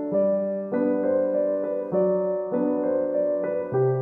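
Background music: a keyboard playing a gentle run of chords, a new chord about every half second.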